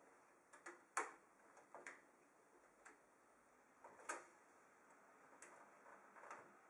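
A few light metallic clicks and taps as an ATX I/O backplate is pushed by hand into a PC case's rear opening to snap it into place. The loudest click comes about a second in and another about four seconds in, with near silence between.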